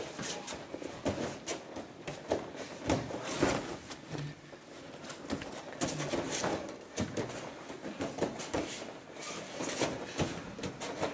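Bare feet shuffling and thudding on foam floor mats, with gi cloth rustling, as jujutsu partners grapple and push each other off balance; the knocks and scuffs come irregularly, several a second at times.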